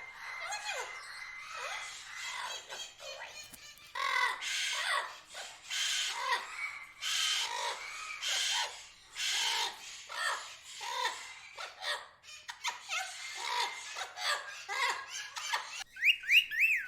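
Tropical birds chirping and chattering, with many short up-and-down calls overlapping. Near the end comes a quick run of louder, higher calls.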